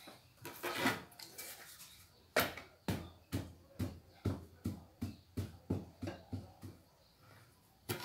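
A run of knocks with low thuds, at first about two a second, coming a little faster and growing fainter until they die away about seven seconds in, after a brief scraping rustle about a second in.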